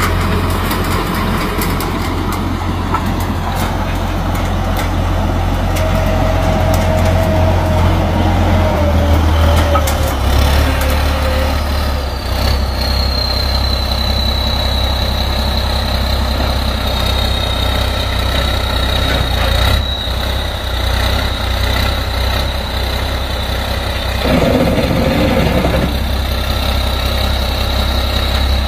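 Engine of a modified crawler tractor running steadily with a low rumble, joined partway through by a thin, high, steady whine.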